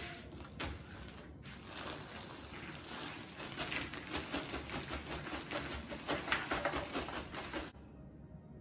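Cardboard jigsaw puzzle pieces tumbling out of a plastic bag onto a tabletop, a dense pattering clatter of many small light clicks that stops abruptly near the end.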